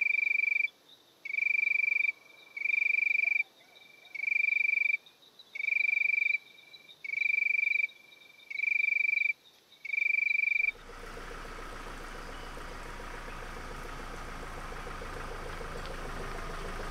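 A repeated trilled call, eight times, each under a second long and about one every 1.3 seconds. About eleven seconds in it cuts off suddenly to a steady background noise with a faint hum.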